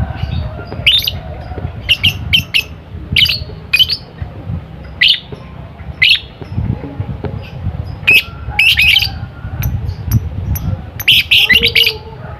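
Lovebird chirping in quick, short, high calls at an irregular pace, some clustered into rapid runs, with a low rumbling noise underneath.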